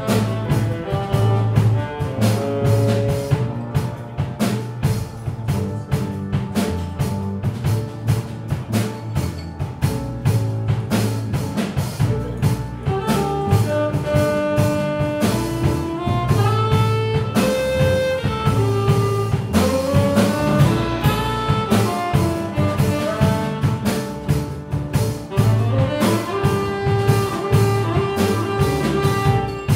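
Live jazz quartet playing: tenor saxophone, piano, double bass and drum kit, with held melody notes over a walking bass and a steady ride of cymbal and drum strokes.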